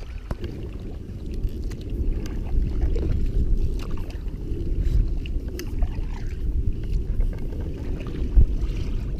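Choppy river water slapping against an inflatable canoe's hull as it is paddled: a steady low rumble with a few light splashes.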